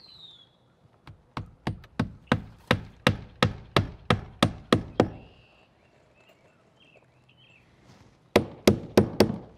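Hammer driving nails through a new window's nailing flange into the wall, tacking the plumbed window in place. About a dozen steady blows at roughly three a second, a pause, then four quick blows near the end.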